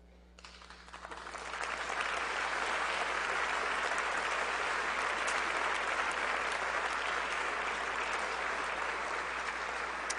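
Audience applauding. The clapping starts about half a second in, swells over the next second or so, then holds steady.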